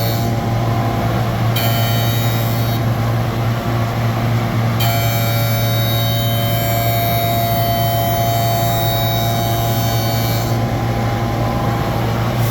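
CNC router running: a steady loud hum with high whining tones that cut out and come back several times.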